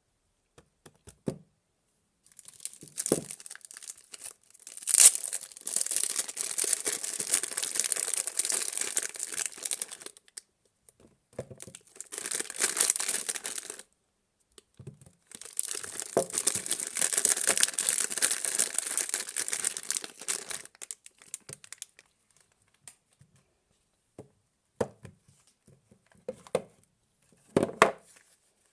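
Soap packaging being torn and crinkled open by hand, in three long stretches of tearing and rustling, with a few short knocks near the start and near the end.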